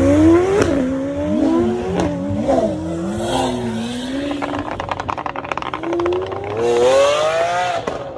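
Performance car engines accelerating hard: the pitch climbs and drops sharply with quick upshifts, about a second in and again near the end, with more than one engine heard at once. Around the middle, a few seconds of rapid exhaust popping and crackling.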